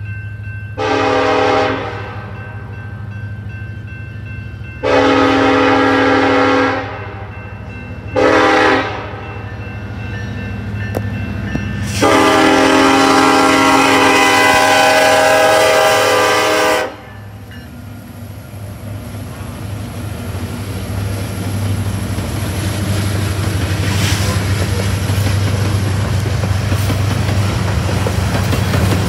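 BNSF EMD SD70ACe diesel locomotive sounding its multi-chime air horn for a grade crossing: four blasts, the third short and the last held about five seconds. After the horn, the low rumble of the locomotives and the loaded coal hoppers rolling past with a clickety-clack grows steadily louder.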